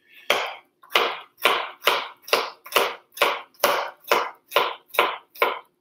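Chef's knife slicing garlic cloves thin on a plastic cutting board: a steady series of about a dozen knife knocks on the board, a little over two a second.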